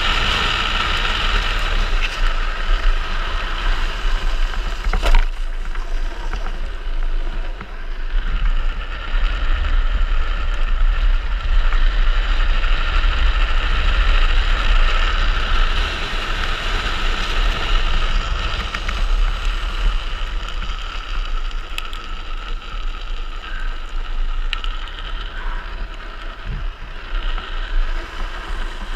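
Wind rushing over the microphone and the wheels of a downhill speed trike rolling fast on asphalt: a steady rushing noise with a low rumble underneath. A single sharp click about five seconds in.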